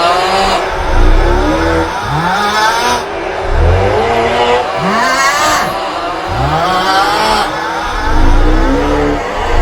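The 'Aughhhh' meme sound: a man's loud, exaggerated groaning snore, repeating again and again with several copies overlapping. Low rising groans come about once a second over a heavy low rumble.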